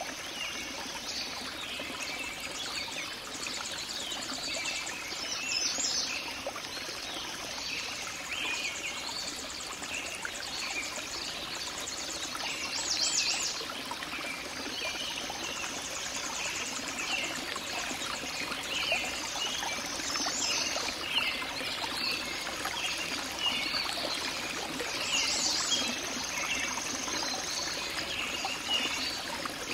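A stream or brook running steadily, a continuous babbling trickle of water, with short high chirping trills recurring every several seconds over it.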